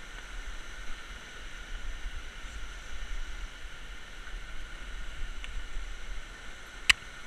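Steady rushing of a fast river running over rocks, under a low rumble from a bike rolling along a gravel path. One sharp click comes near the end.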